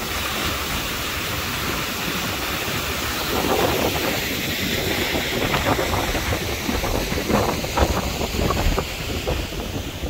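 Steady rush of the Öxararfoss waterfall, giving way about three seconds in to gusty wind buffeting the microphone.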